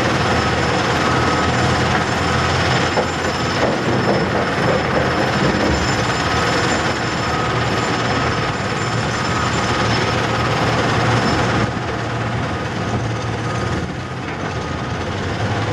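Cat 325CL excavator's diesel engine and hydraulics working steadily under load, mixed with the running screener, with a steady high whine through the din. A few faint knocks come about three to four seconds in, and the noise drops a little about twelve seconds in, then builds again near the end.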